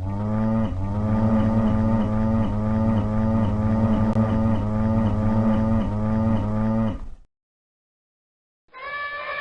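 A cow mooing in one long, low call of about seven seconds that pulses evenly, roughly once every 0.7 seconds, then cuts off.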